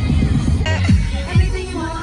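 Electronic dance music with a heavy pulsing bass beat and two falling bass sweeps about a second in.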